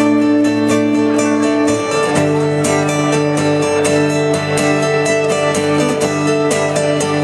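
Acoustic guitar strummed in a steady rhythm, changing chord about two seconds in.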